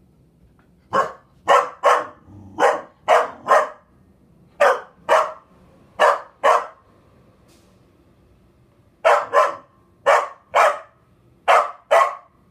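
A curly-coated doodle-type dog barking at an exercise ball: about sixteen short, sharp barks, mostly in quick pairs, with a pause of about two seconds midway.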